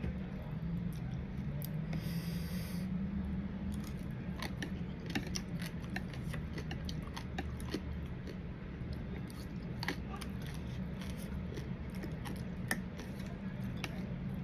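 Close-up eating sounds of som tam with crab and shrimp: chewing, with many scattered small clicks and crunches, over a steady low hum.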